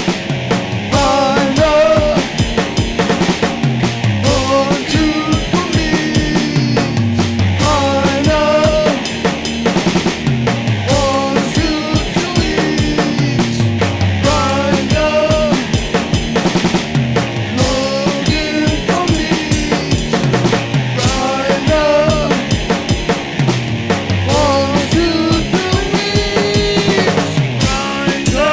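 Heavy metal band playing: drum kit keeping a driving beat under a repeating distorted electric guitar and bass riff that comes round about every two seconds. Near the end a guitar note rings out and bends.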